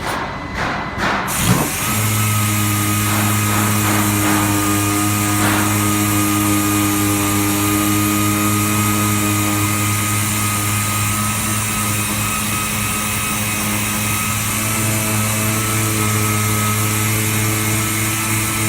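A machine starts running at a steady speed about two seconds in: a low, even hum with a thin high whine above it.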